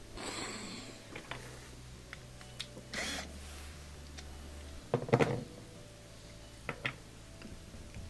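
Handling noise: scattered clicks and knocks, with a louder clatter about five seconds in.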